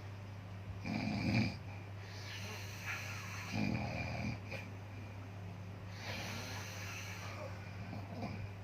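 Slow, regular snoring, one breath about every two to three seconds, the loudest about a second in, over a steady low hum.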